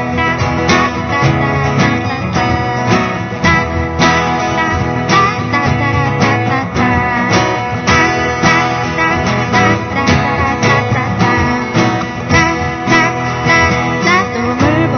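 Acoustic guitar strummed in a steady rhythm, an instrumental stretch of a live pop-song performance.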